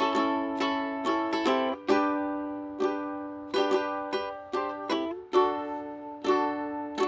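Solo ukulele picked, single notes and chords plucked one after another, each ringing out and fading before the next.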